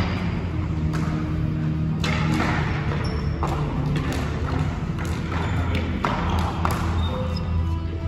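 Hockey game play: a handful of sharp knocks and scrapes from sticks, puck and skates, spaced a second or so apart, over a steady low hum.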